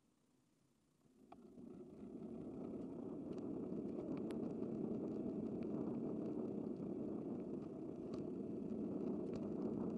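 Steady rushing road and wind noise of a bicycle ride through city traffic, swelling up from near silence about a second in and then holding steady, with faint scattered ticks.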